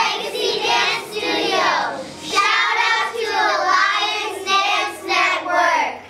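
A group of young girls calling out together in unison, in several phrases with short breaks between them.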